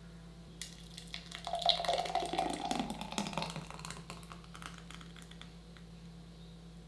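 Thick, frothy jackfruit lassi poured from a steel bowl into a glass mug: a liquid splashing and glugging into the glass, loudest about two seconds in and trailing off by about five seconds.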